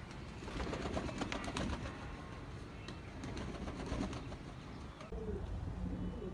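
Lahori Sherazi pigeons cooing, with coos coming in about five seconds in, over a low rumble and scattered clicks.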